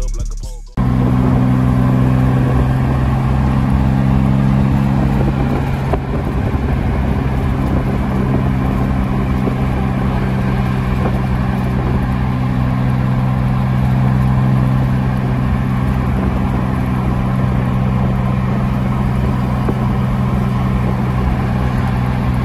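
A rap track fades and cuts off just under a second in. Then comes the steady drone of a car engine at constant speed, with low humming tones, tyre and wind noise, heard while pacing a lowered minivan on the road.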